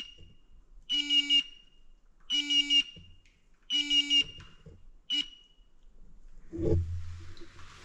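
Portable gas detector alarm beeping: four buzzy half-second beeps about 1.4 s apart and a short fifth one, then stopping, set off as gas bubbles up through the stirred floodwater. A low thump and some sloshing near the end.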